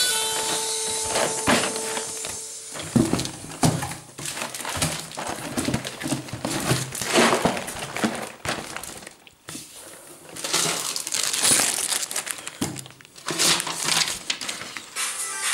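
Paper packing material crinkling and cardboard boxes being handled inside a shipping carton, in irregular rustles with short crackles and knocks. The last of a held music note dies away in the first two seconds.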